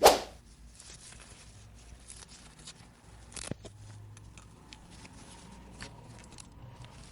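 A sharp plastic knock at the start, then a second click about three and a half seconds in, with scattered light clicks and taps of small plastic toy pieces being handled.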